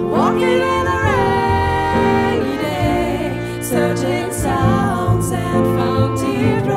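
A song performed live: a woman's singing voice over grand piano, double bass and guitar.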